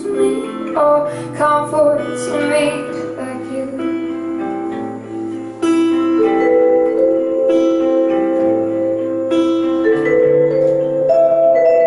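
Instrumental passage of a slow song: acoustic guitar playing chords with vibraphone and keyboard notes ringing over it.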